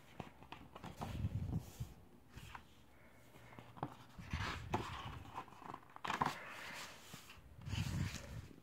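Pages of a paperback colouring book being turned and pressed flat by hand: irregular paper rustling and swishing, with soft thumps near the start and near the end.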